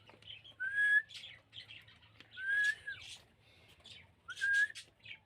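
Rose-ringed parakeet giving three short, slightly rising whistles about a second and a half apart, mixed with scratchy chirps.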